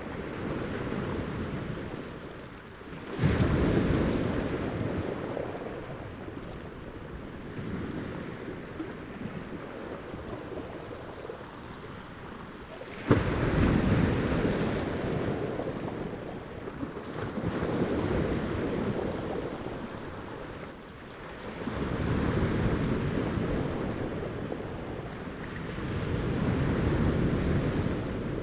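Ocean waves breaking and washing on a shore, swelling and ebbing every few seconds, with wind. The sound jumps suddenly louder about three seconds in and again about thirteen seconds in.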